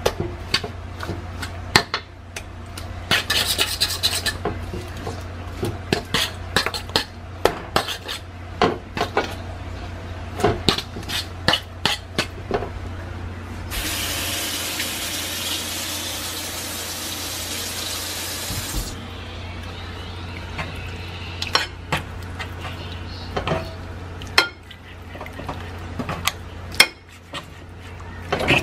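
Metal tongs clicking, knocking and scraping against a cooking pan as pieces of seasoned raw meat are turned and moved, over a steady low hum. About fourteen seconds in, a steady hiss runs for about five seconds, then stops.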